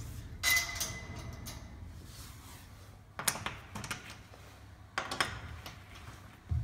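Sheet-metal cabinet of a Chocotech TS4 chocolate tempering machine being handled, over a steady low hum. There is a metallic clatter with a brief ringing about half a second in, then single knocks at about three seconds, five seconds and near the end.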